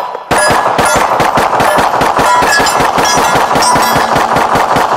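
Glock 19 Gen 5 9mm pistol fired in a fast, unbroken string of shots, with one short break just after the start. Hit steel plate targets ring under the shots.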